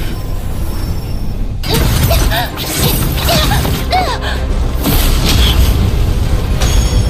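Sound effects for an animated battle: deep booming energy blasts that come in suddenly about a second and a half in, over dramatic background music.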